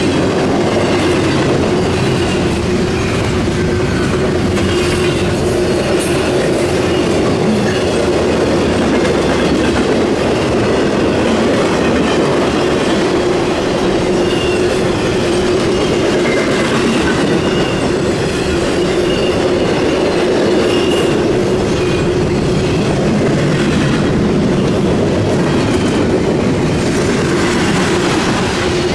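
Intermodal freight train rolling past at speed: steel wheels on double-stack well cars and trailer flatcars clatter along the rails with a steady hum. Faint high wheel squeals come and go.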